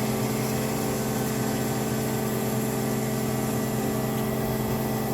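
Marvel 25 APC vertical bandsaw running with a steady hum from its 10-horsepower hydraulic drive.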